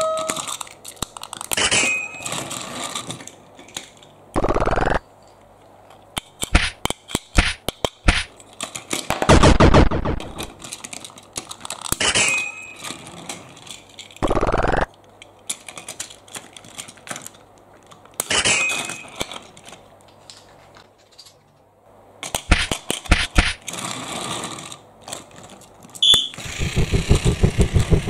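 Clicks and plastic clatter of a toy train set being handled, with short bursts of noise. Near the end a battery-powered Plarail toy train starts running with a fast, even rattle.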